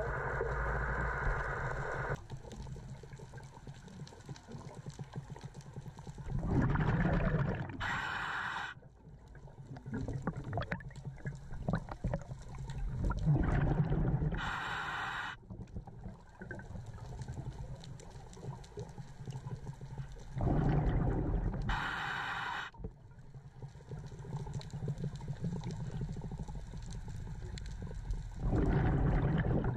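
Scuba diver breathing through a regulator underwater: four breaths about seven seconds apart, each a surge of exhaled bubbles and a short hiss of the regulator, over a steady low rumble.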